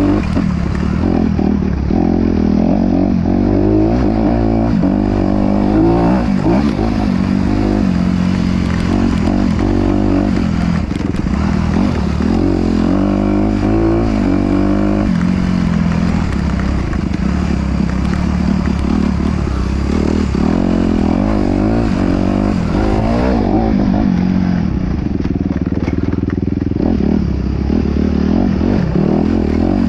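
An off-road vehicle's engine running under load, its revs rising and falling again and again over rough ground, with some clatter and scraping.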